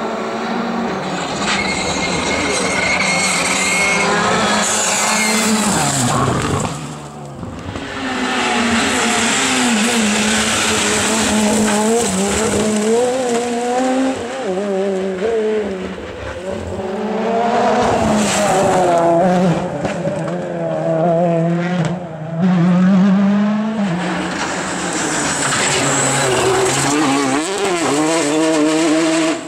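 Rally cars, a Škoda Fabia R5 among them, passing one after another at full speed on a stage, their engines revving hard and dropping back through gear changes and lifts, with some tyre squeal. The sound breaks off sharply twice as one car gives way to the next.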